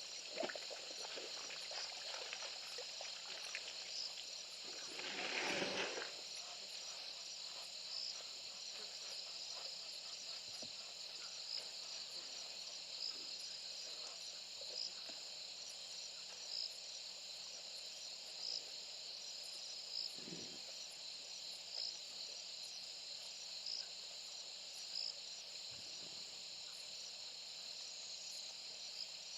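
Steady chorus of crickets with a short high chirp repeating about every two seconds. About five seconds in, a rush of noise lasts about a second, and a couple of faint low thumps come later.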